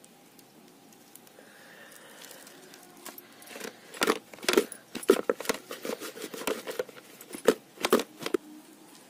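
Spice-coated fish sliding and knocking inside a plastic bucket as it is shaken by hand to coat them in the chilli and turmeric marinade: a run of loud thumps and rattles starting about three and a half seconds in and stopping just before the end.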